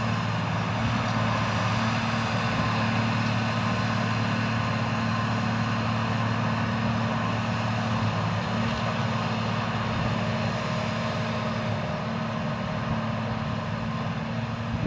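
Engine of a tracked Hycat rotary drilling rig running steadily as the rig drives across grass, easing off slightly near the end as it moves away.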